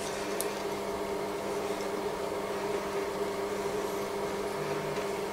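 A machine humming steadily, with a few fixed tones; a faint click about half a second in.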